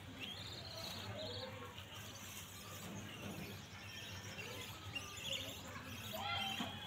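Small birds chirping now and then over a faint outdoor background; near the end a steady pitched sound with overtones comes in, the start of music.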